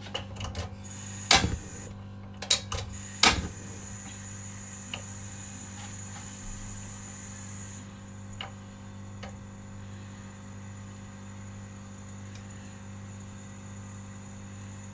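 A mandarin orange skewered on chopsticks, held over a stove flame to roast, with a steady low hum throughout. A few sharp knocks and clicks come in the first few seconds. A high hiss cuts off suddenly about eight seconds in.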